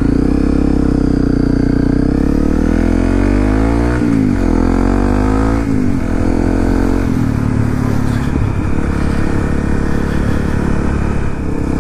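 2018 Honda CRF250L's single-cylinder four-stroke engine pulling away, its revs rising and dropping back twice as it shifts up, about four and five and a half seconds in, then running at a steady cruise.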